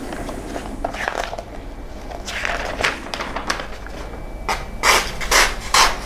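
Freshly honed knife blade slicing through magazine paper in several quick cuts, most of them in a fast run near the end, with paper rustling as the pages are handled. The cuts test the edge just touched up on fine sandpaper.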